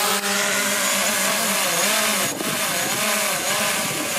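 Small folding quadcopter drone hovering close overhead as it is brought down to be caught by hand, its propellers whining with a pitch that wavers up and down as it holds position.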